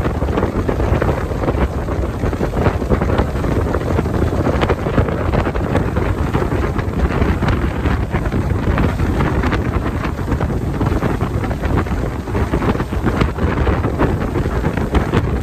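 Wind buffeting the microphone on a fast-moving open speedboat, with the boat's engine running and water rushing past underneath, steady throughout.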